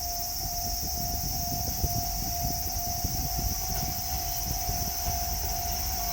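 Japanese level crossing's electronic warning bell sounding continuously as one steady tone, over a steady high hiss and a rough low rumble.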